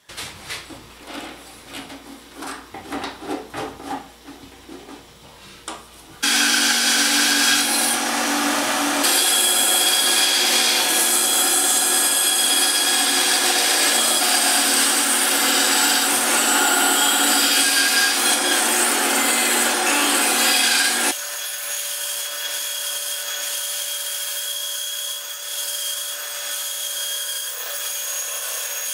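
A few seconds of scattered knocks and rubbing from the board being handled. Then a 9-inch benchtop band saw starts running and cutting sassafras in one loud, steady stretch. About 21 s in, this drops abruptly to a quieter steady run of the saw.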